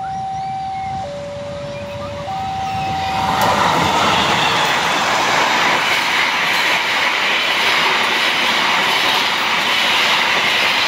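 A level-crossing warning alarm sounds two alternating tones, high then low, each held about a second, as a diesel-hauled passenger train approaches. About three and a half seconds in the train reaches the microphone and its carriages rush past at about 100 km/h, a loud, steady noise of wheels on rail that drowns out the alarm.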